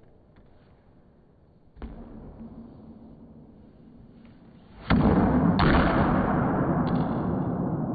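A racquetball is struck hard with a racquet about five seconds in: a sudden loud crack. Loud, noisy sound carries on after it without dying away. A fainter hit comes a couple of seconds earlier.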